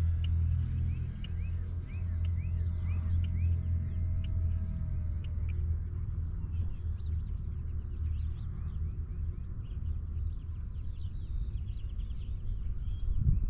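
A steady low rumble of wind buffeting the microphone, with small birds chirping throughout. A thin high whine, likely the RC glider's electric pusher motor, drops in pitch and fades out about five seconds in.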